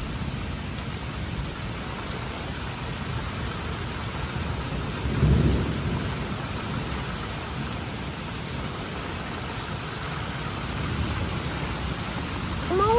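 Steady rain falling on leafy trees, with a low roll of thunder about five seconds in. Just before the end a high, wavering whining cry begins.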